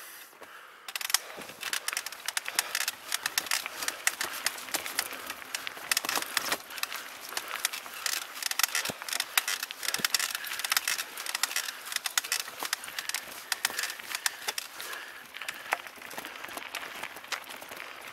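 Mountain bike rolling along a dirt trail: tyres crunching over dirt and the bike rattling, a dense stream of small irregular clicks and knocks that starts about a second in.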